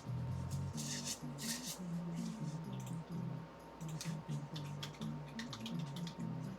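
Quiet background music carried mainly by a low, stepping bass melody, with a few faint rustles and clicks over it.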